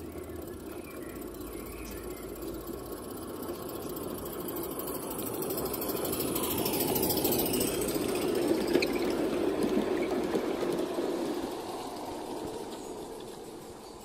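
Live-steam garden-railway train running past: the locomotive and its coaches rolling on the track grow louder as they approach, are loudest about eight to ten seconds in with a few sharp clicks, then fade as the train runs away.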